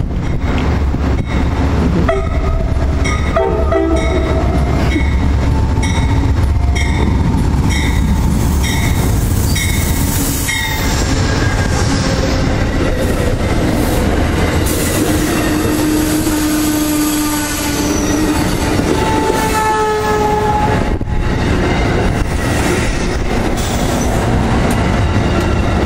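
Amtrak Downeaster passenger train pulling into the station alongside the platform: a heavy diesel and wheel rumble with a bell ringing steadily for the first ten seconds or so. The coaches then roll past with wheels clattering over the rail joints and wheels and brakes squealing as the train slows.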